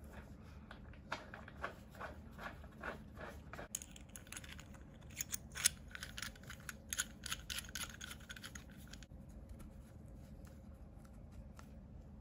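Faint small clicks and scraping of a chrome compression nut and fitting being handled and threaded by gloved hands onto a copper pipe end. The clicks are busiest in the middle and thin out after about nine seconds.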